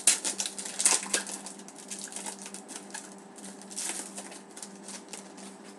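2011-12 Panini Certified hockey card pack wrapper being torn open and crinkled by hand: a rapid run of crackles, loudest in the first second and again about four seconds in, over a faint steady hum.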